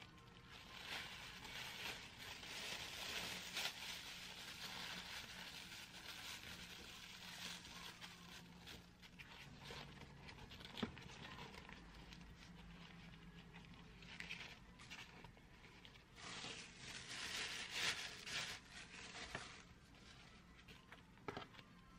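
Thin plastic bags and paper wrapping crinkling and rustling in uneven bursts as food is unwrapped and handled, with a light knock about eleven seconds in.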